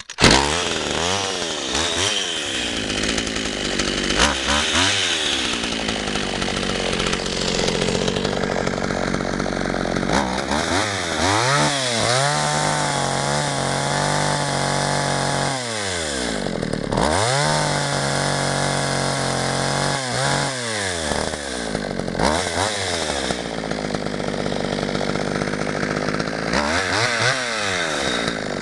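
McCulloch Mac 120 two-stroke chainsaw running, idling between repeated quick revs of the throttle, with two held stretches at high revs of about three seconds each around the middle.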